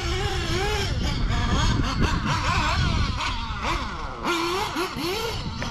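Nitro RC buggy's two-stroke glow engine revving as it is driven around the track, its pitch rising and falling with the throttle, over a steady low rumble.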